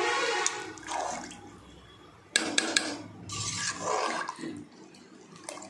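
Rice and coconut milk being stirred with a metal ladle in an aluminium pressure cooker: the liquid sloshes in waves, and the ladle knocks a few times against the pot about two and a half seconds in.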